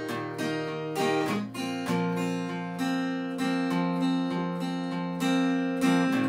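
Cutaway Fender acoustic guitar being strummed, with steady rhythmic chords and a chord change about two seconds in.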